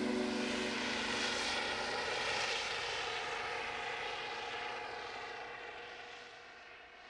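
Helicopter flying past low overhead, its engine and rotor noise dying away steadily. The last notes of background music fade out under it in the first couple of seconds.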